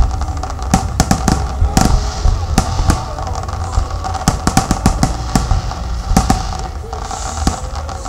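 Fireworks going off in a display: a rapid, irregular run of bangs and crackles over a steady low rumble.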